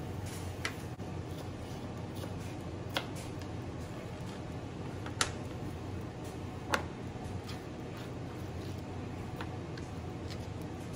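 Kitchen knife and hands on a plastic cutting board while tomatoes are diced and the pieces gathered up: scattered sharp clicks and taps, four of them standing out, over a steady low hum.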